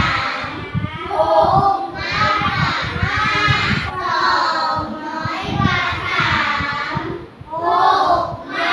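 A class of young children reading aloud together in unison, in several loud chanted phrases.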